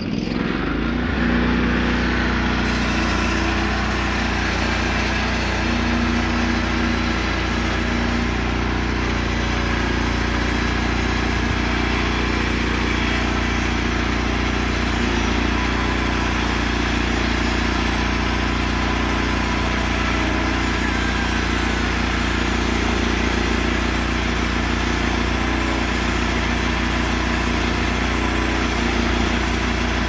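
Timbery M280 portable band sawmill running steadily, its engine driving the band blade at an even speed.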